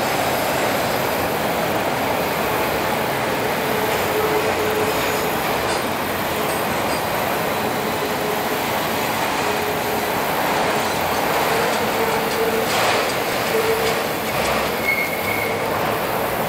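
Norfolk Southern freight train of autorack cars rolling steadily across a stone-arch bridge: a continuous rumble of wheels on rail, with brief faint wheel squeals now and then.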